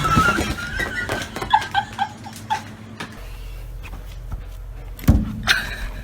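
Domestic cat vocalizing: a drawn-out call at the start, then a run of short, quick calls. A knock about five seconds in.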